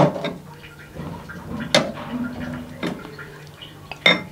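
Metal ladle knocking against the rim and side of a metal pressure-cooker pot while chicken curry is ladled out into a serving bowl: about four sharp clinks spread roughly a second apart, the last with a short metallic ring.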